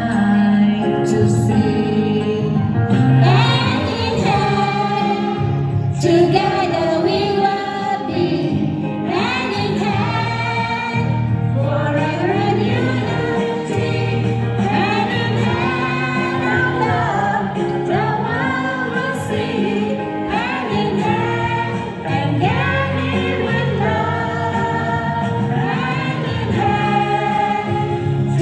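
A song with singing voices over a steady bass line, played loud through a stage loudspeaker.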